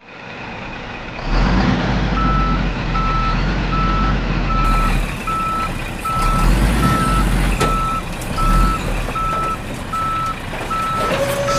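Toy dump truck reversing: a steady reversing beeper, a little more than one beep a second, starting about two seconds in over a low engine rumble. There is a single sharp click about two-thirds of the way through.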